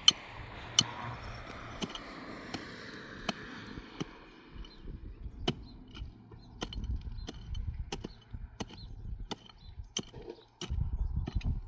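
Repeated sharp strikes, like a hand tool hitting something, at a steady pace of about one every three quarters of a second. A hissing noise runs under the first four seconds, and low rumbling comes in over the second half.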